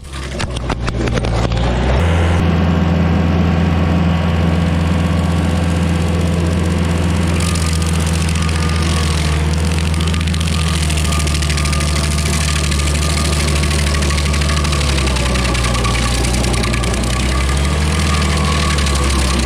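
Rayco RG50 stump grinder running steadily, its engine note with the hiss of the cutter wheel over it. A quick rattle of clicks comes at the start, and the engine note shifts slightly about fifteen seconds in.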